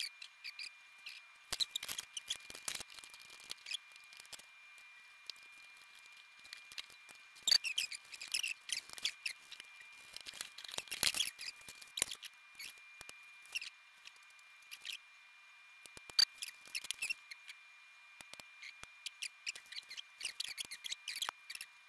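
Irregular small clicks, ticks, snips and scrapes of hand tools and hookup wire being handled, with a faint steady high-pitched tone underneath.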